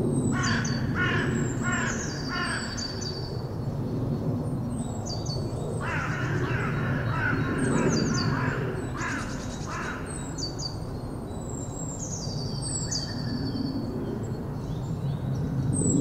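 Birdsong. A larger bird gives a run of four harsh calls in the first few seconds and another burst of calls around the middle, over high, falling whistled notes from small songbirds and a steady low background noise.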